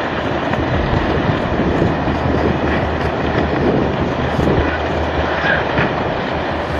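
Loud, steady rumbling and rushing noise of a landslide, earth and debris sliding down into the sea.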